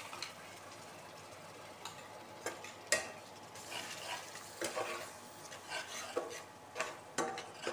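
Metal spatula stirring and scraping through a spice masala with freshly added yogurt in a metal kadai, over a faint sizzle, with a sharp clink about three seconds in. The yogurt is being stirred in continuously so that it doesn't split.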